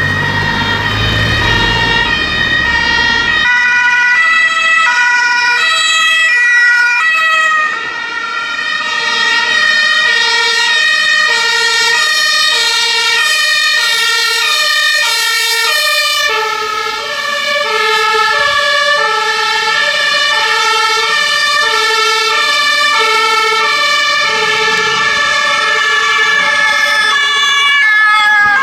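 Several German two-tone emergency sirens (Martinhorn) sounding together from passing emergency vehicles, their alternating high-low tones overlapping out of step. A low vehicle engine rumble runs underneath for the first few seconds.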